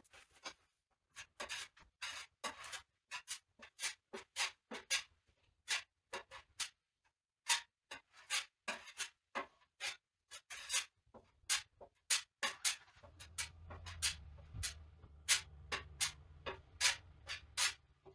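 Plastic body-filler spreader scraping Bondo across a car fender in quick, repeated strokes, about two a second, with a short pause near the middle.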